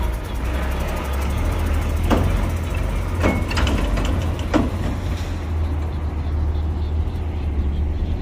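Heavy diesel earthmoving machinery running with a steady low rumble. A few sharp knocks come between about two and five seconds in.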